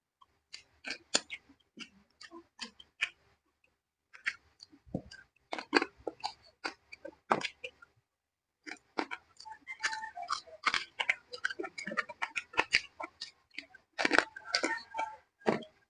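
Close-up chewing and lip-smacking while eating braised pork leg (paksiw na pata): rapid wet clicks and smacks in bursts, with two short pauses about four and eight seconds in.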